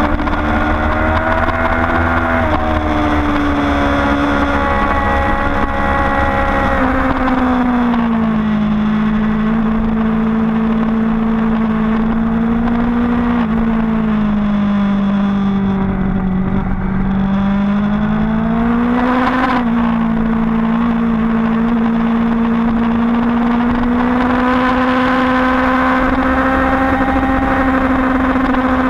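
Onboard engine of a vehicle lapping a race track, running hard and steady with wind rush. The engine note drops in pitch about a quarter of the way in, sags and climbs again past the middle, jumps suddenly about two-thirds of the way through, then holds steady as speed changes through the corners.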